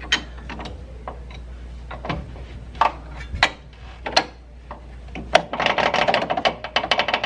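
Hand ratchet wrench clicking as it turns the bolt that fastens a coilover fork to the car's lower control arm: scattered single clicks at first, then a quick steady run of clicks in the last two seconds.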